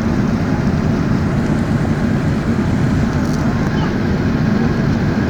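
Steady cabin noise of an Airbus A380 descending on approach: a constant low rumble of engines and airflow heard from inside the passenger cabin.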